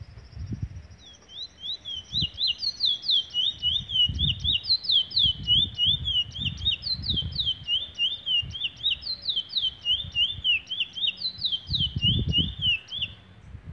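Caged bullfinch singing a long, fast song of quick, sharp, downward-slurred whistled notes, starting about a second in and running on until just before the end, with low rumbles underneath.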